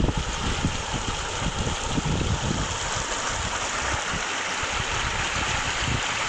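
Running water flowing steadily, a stream's continuous rush with irregular low rumbles underneath.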